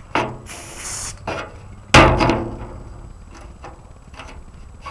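Aerosol spray-paint can sprayed onto a paper stencil: a hiss lasting about a second just after the start. About two seconds in comes a loud thump, the loudest sound, followed by a few faint clicks of the stencil being handled.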